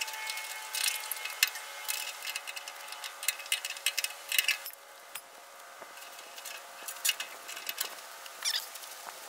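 Steel chain links clinking and rattling in short, irregular clusters as a chain is handled and hooked around a load hanging from a loader bucket.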